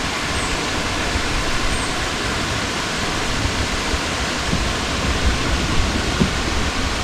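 Steady rush of water pouring over a waterfall and through rapids, an even hiss that does not let up.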